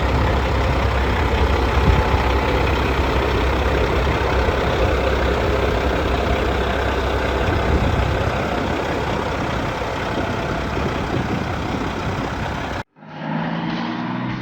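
Heavy-truck diesel, a CAT C15 six-cylinder in a Peterbilt 379, running steadily with a deep rumble. Near the end the engine sound cuts off abruptly and a different sound with a few steady tones takes over.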